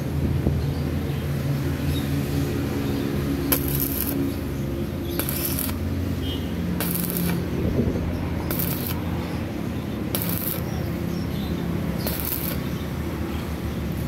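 Stick (arc) welding on a steel motorcycle frame: the arc crackling and sizzling steadily over a low electrical hum, with sharper hissing crackles about every second and a half to two seconds.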